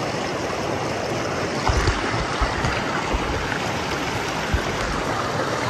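Creek water rushing and churning over rock ledges in a shallow cascade, a steady dense rush, with a few low bumps in the middle.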